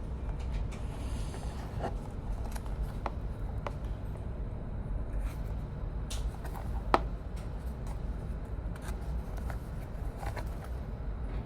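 Light clicks, scrapes and rustles of a small package and plastic keychain being handled, over a steady low rumble. One sharper click comes about seven seconds in.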